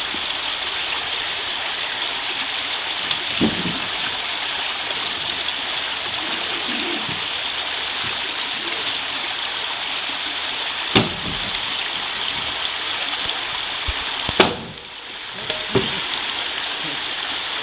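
River water rushing steadily, with a few short sharp knocks scattered through it, the loudest about three-quarters of the way through.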